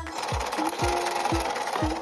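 A rasping whir from a toy ambulance minicar running, under background music with a thudding electronic beat about twice a second.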